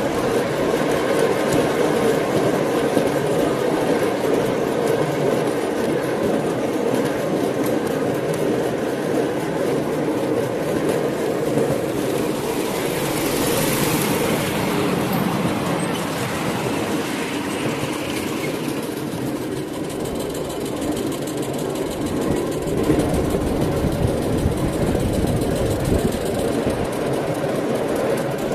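Miniature railway passenger car running along 7¼-inch gauge track: a steady rumble and clatter of small wheels on the rails. About 13 seconds in, a brief hiss rises and fades.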